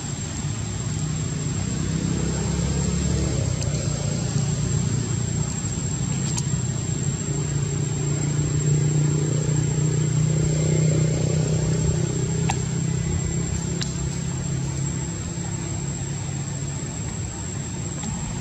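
A motor vehicle's engine droning low, building to its loudest about halfway through and then fading as it passes. A thin, steady high-pitched whine runs underneath.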